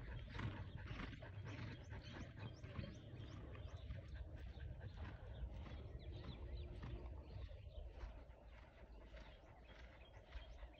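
Faint hoofbeats of a horse cantering on the loose dirt of a riding arena, heard from a distance.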